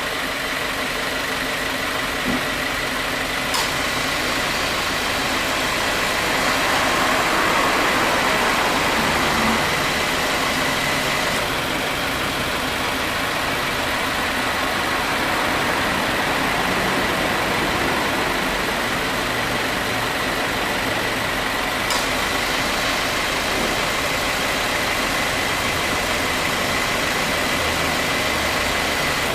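2018 Subaru WRX's turbocharged flat-four idling with the air conditioning on; the AC compressor clutch clicks in twice, once near the start and again about two-thirds through. The compressor engages with no abnormal noise, its earlier slight wear now dealt with.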